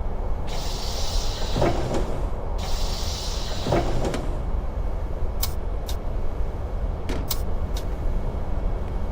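Double-decker bus idling with a steady low rumble, with two hisses of compressed air from its pneumatic doors about half a second and three seconds in. A few sharp clicks follow.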